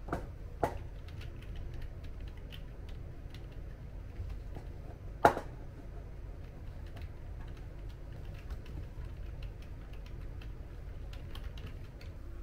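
Typing on a computer keyboard: a run of soft, irregular key clicks, with a few sharper knocks near the start and a loud one about five seconds in.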